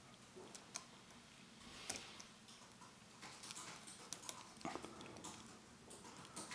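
Faint, scattered small metallic clicks and ticks of a lock pick and tension wrench working the pin stacks inside an Abus 83CS/55 padlock during picking.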